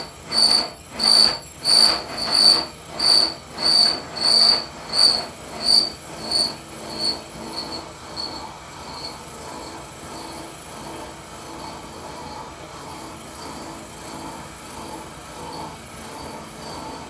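Slitting saw on a Schaublin SV-51 milling machine starting its cut into a metal bar, fed by hand: a high-pitched ringing screech that pulses about one and a half times a second. The screech fades away over the first half and settles into a quieter, steady cutting sound as the saw beds into the cut.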